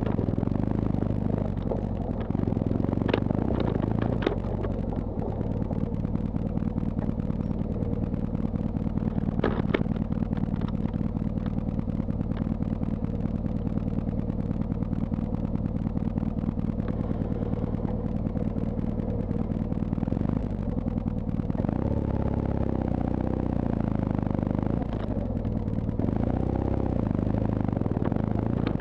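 BMW R1200GS's boxer-twin engine running as the bike is ridden off-road over rough dirt and sand, with a few sharp knocks from the bike over the rocky ground. About twenty-two seconds in, the engine note rises as it revs up.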